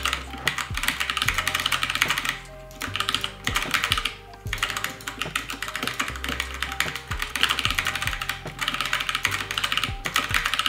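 Fast typing on a Krux Neo Pro 60% mechanical keyboard with Gateron switches: a dense run of key clicks that stops briefly twice.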